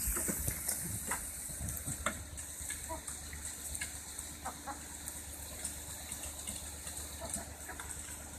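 Light Brahma chickens clucking softly, with scattered short ticks as they peck at food.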